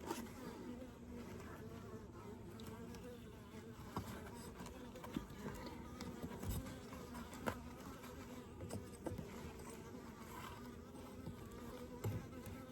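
Honeybees buzzing steadily around the open hive, a faint, wavering hum, with a few faint knocks scattered through it.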